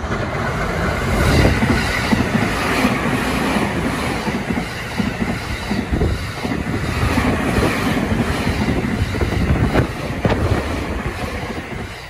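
A JR East electric commuter train running past close by, a steady rush of running noise with the wheels clattering over rail joints. The sound begins to fade near the end as the last cars go by.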